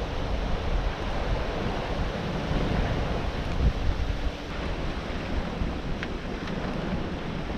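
Wind and sea water rushing past a sailing yacht under way downwind, with wind buffeting the microphone: a steady, even rush.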